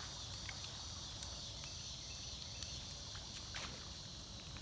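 Steady high-pitched chorus of insects, with a low rumble underneath and a few light clicks, the clearest about three and a half seconds in.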